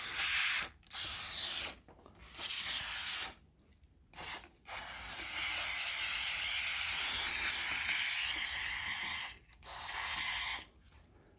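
Aerosol can of wet-type power-window cleaner spraying in hissing bursts: a few short squirts, a long spray of about four and a half seconds in the middle, then one more short squirt.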